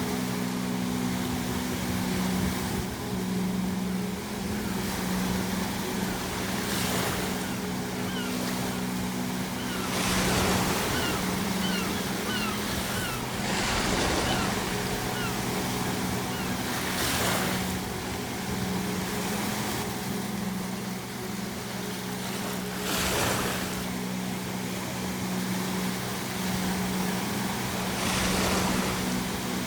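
Ocean surf: waves breaking on the shore every few seconds over a steady wash of water, with a run of short gull calls in the middle and a steady low hum underneath.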